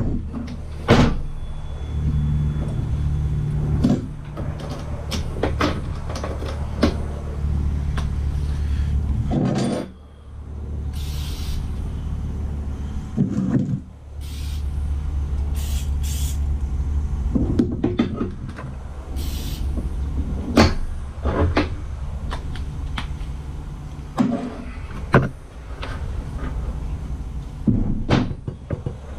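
Chicago Electric 125-amp flux-core welder buzzing steadily as it lays a weld glob onto the end of a rebar handle. The buzz stops and starts several times, with sharp clicks and knocks in between.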